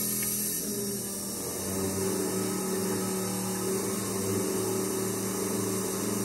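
A truck-mounted fuel transfer pump runs with a steady hum, pumping gasoline through the hose into a mower's tank. The hum sags briefly about a second in, then steadies.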